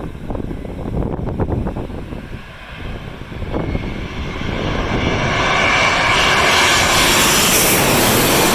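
Airliner on final approach, passing low overhead to land, its engine noise swelling from about halfway through to a loud, steady roar. Gusting wind buffets the microphone before the plane arrives.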